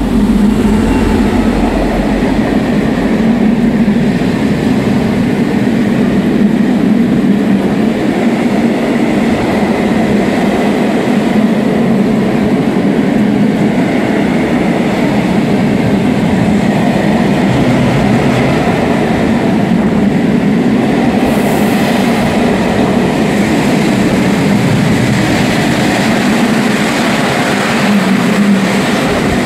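An M62 diesel locomotive with a two-stroke V12 engine passes close by at the start, then its freight wagons roll past with a steady, loud rumble of wheels on the rails.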